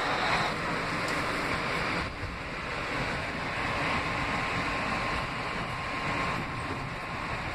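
R160B subway car (Alstom propulsion) running between stations, heard from inside the car: a steady rumble and rush of wheels on rail with a faint steady whine. It becomes a little quieter about two seconds in.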